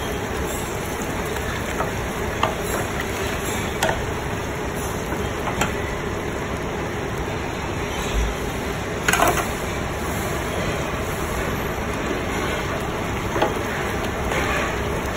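Melted butter sizzling in a steel pot over a steady rushing background noise, with about five sharp clinks of a spoon and flour bowl against the pot as flour is stirred in to make a roux.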